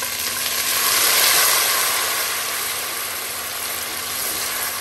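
Hot oil and browned onions sizzling loudly as a little water hits the pan, the hiss swelling about a second in and then easing off while a silicone spatula stirs.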